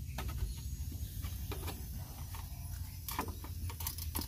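Scattered light knocks and clicks, irregular, as a plastic engine cooling fan blade on its fan clutch is handled and fitted back into place, over a steady low rumble.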